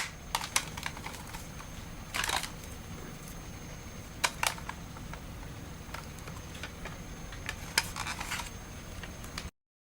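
Handling of a Tokyo Marui airsoft grenade launcher: scattered sharp mechanical clicks, a short rasping slide about two seconds in, and a cluster of clicks near the end.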